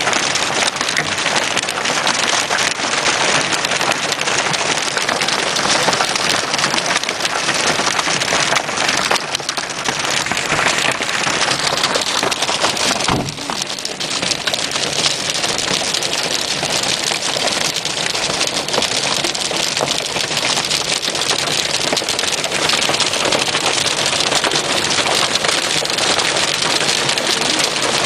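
Hail pelting down: a dense, steady clatter of countless small hailstone impacts.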